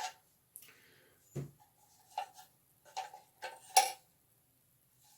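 Metal clicks and clinks of an antique iron padlock being handled and unlocked, its bolt worked back: a few light clicks, a duller knock about a second and a half in, and the sharpest click near four seconds.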